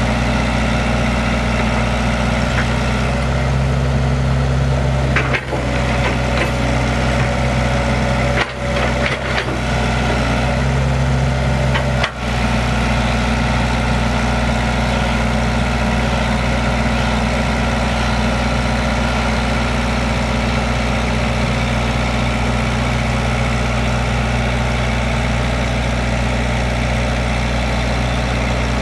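Kobelco SK115SR excavator's diesel engine running steadily, its note getting heavier twice for a second or two, with a few short sharp breaks in the sound between about 5 and 12 seconds in.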